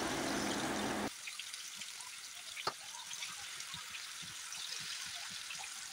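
Marinated chicken pieces sizzling in hot oil in a frying pan, with scattered small crackles and one sharper pop about two and a half seconds in.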